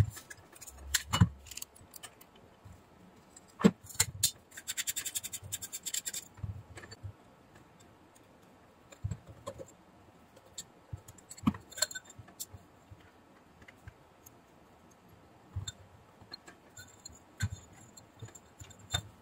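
Hands and a small screwdriver taking apart a CCTV bullet camera's housing: scattered clicks, knocks and scrapes of metal and plastic parts, with a fast run of small clicks about four seconds in.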